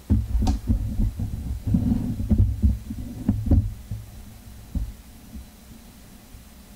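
Low rumbling and thudding of handling noise on a handheld camera's microphone as the camera is moved, with a few sharp clicks mixed in. It dies away about four seconds in, leaving a faint low hum.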